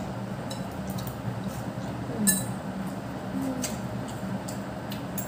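Metal forks clinking and scraping now and then against ceramic plates while people eat noodles, the sharpest clink about two seconds in, over a steady low hum.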